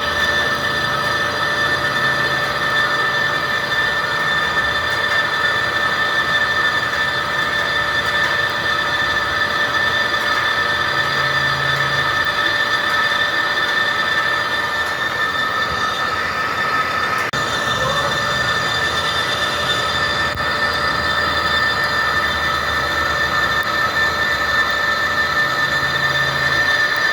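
Metal lathe turning steel, the cutting tool giving a steady, high-pitched squeal over the machine's running noise.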